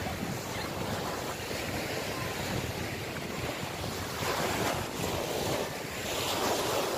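Wind buffeting the phone's microphone: a steady rushing noise that swells twice in the second half.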